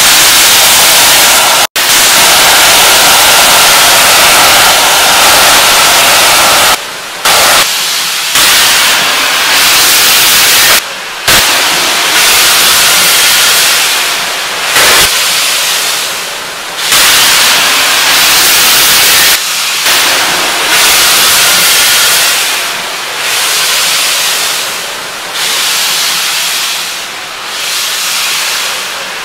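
Steam locomotive 70000 Britannia, a BR Standard Class 7 Pacific, letting off steam: a loud, steady hiss that breaks off briefly a few times and rises and falls in the second half.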